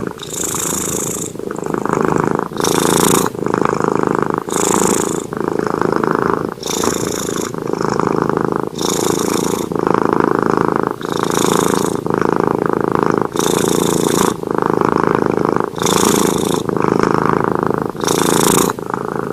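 A sleeping cat purring close up, steady and loud, the purr alternating with each in- and out-breath about once every two seconds, with a breathy high hiss on every other phase.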